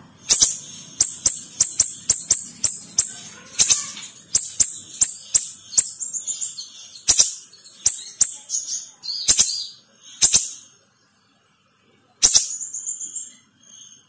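Caged siri-siri bird calling in a quick run of short, sharp, very high notes, about two to three a second. It stops for about a second and a half shortly after the middle, then calls again, more faintly toward the end.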